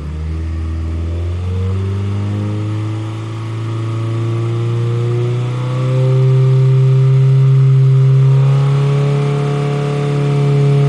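A 2017 Subaru WRX's turbocharged 2.0-litre flat-four runs through an aftermarket exhaust, held at steady high revs for an exhaust sound-level test. The engine note creeps up slightly over the hold, with a couple of brief small dips.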